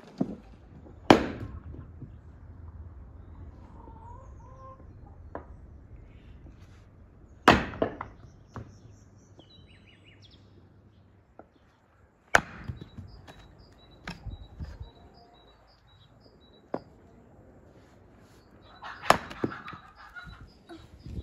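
Axe splitting firewood logs on a chopping block: several loud, sharp strikes a few seconds apart. A chicken clucks now and then between them.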